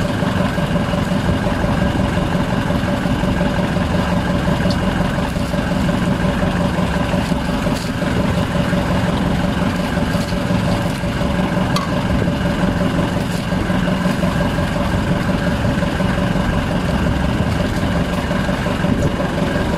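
Outrigger boat's engine running steadily with an even hum, its pitch unchanging, with a few faint light ticks over it.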